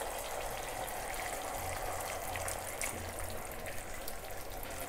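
Faint, steady hiss of sauce simmering in a kadhai on a gas burner, with a few soft ticks.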